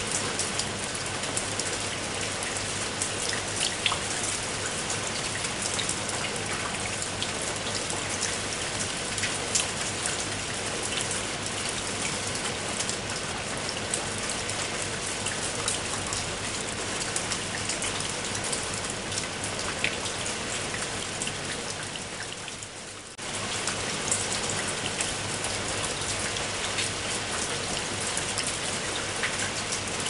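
Steady rain falling, an even hiss with single drops ticking out of it. About 22 seconds in it fades a little, then comes back suddenly at full strength.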